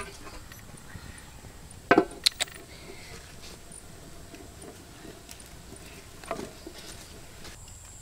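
Aluminium pot lid set down on a steel wok: a loud metallic clank about two seconds in, followed quickly by two short rattles, with a lighter knock later.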